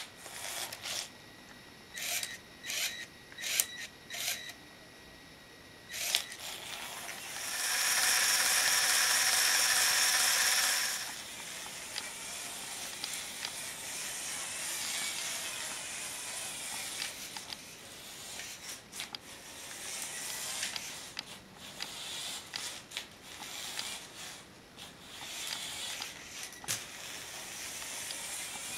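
LEGO Power Functions XL motor whining through plastic Technic gears as a LEGO trike runs on carpet, with a servo motor steering. There are a series of sharp plastic clicks in the first six seconds. From about 8 to 11 seconds a loud steady high whine comes in, then a quieter, wavering whir with scattered clicks.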